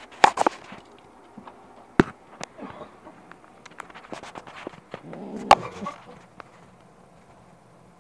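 Handling noise: irregular sharp knocks and clicks as the phone is moved about inside a cardboard box lined with fleece bedding, with a short spell of rustling a little past the middle.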